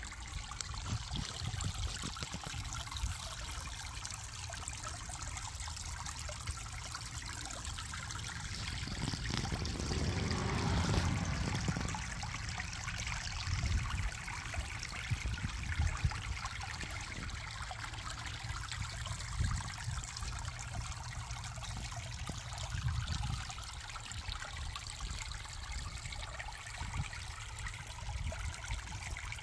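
Small creek trickling steadily over a shallow bed, with a low rumble underneath; the sound swells briefly about ten seconds in.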